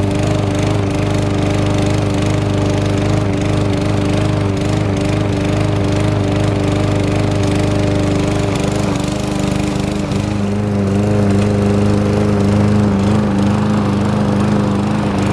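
Gas walk-behind push mower's small single-cylinder engine running steadily while cutting grass. About ten seconds in its tone shifts and it gets a little louder.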